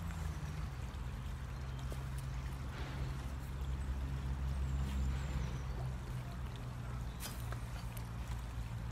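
A steady low hum over the sound of running water, swelling a little midway, with one sharp click about seven seconds in.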